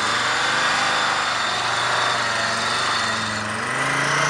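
UAZ-469 off-road vehicle's engine running under load as it drives through loose sand, with its revs rising near the end as it starts to climb a steep dirt bank.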